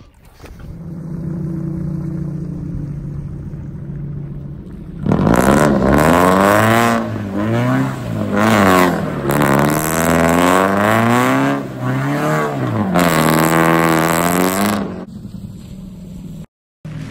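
Lowered sports car's engine idling steadily, then revved hard up and down four or five times as the car is driven across wet pavement. The revving stops shortly before the end.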